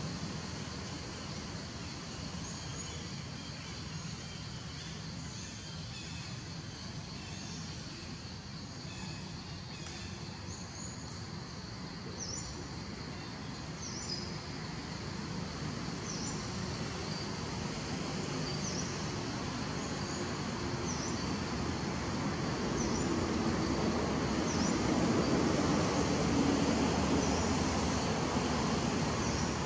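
Outdoor ambience: a steady, noisy background that grows louder in the last third, with a bird repeating a short, high, falling call about every second and a half through the second half.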